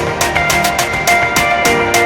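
Electronic music with a fast, steady drum beat under held synth notes.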